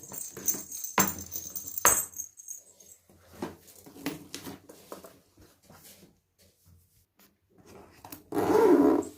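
Light knocks, clicks and clatter of household items being handled and set down while a cat's room is tidied, with two sharper knocks about one and two seconds in. Near the end a louder, pitched sound starts.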